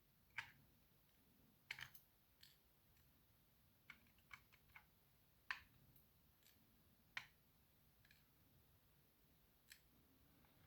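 A dozen or so faint, irregularly spaced small clicks: tiny lock springs and pins from a dimple lock being taken out and set into a metal pinning tray.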